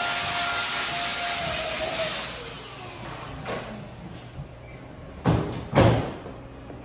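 An electric blower motor runs with a steady hiss and whine, then switches off about two seconds in and winds down in falling pitch. Two short, loud knocks follow near the end.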